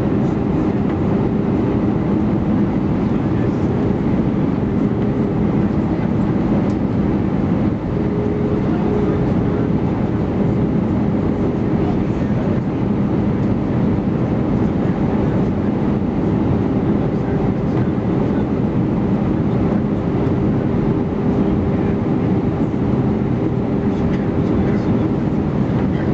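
Steady cabin noise inside an Airbus A319-131 with IAE V2500 engines: an even rumble of engines and airflow with a steady low hum, unchanging throughout.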